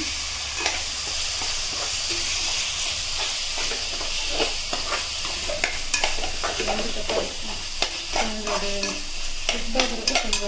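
Chopped tomatoes sizzling as they fry in oil with onions in an aluminium pressure cooker, stirred with a metal slotted spoon that scrapes and clicks against the pan. A steady sizzle runs under irregular sharp scrapes and taps of the spoon.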